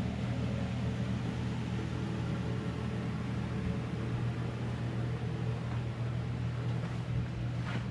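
Steady low machine hum with an even hiss over it, and a light knock near the end.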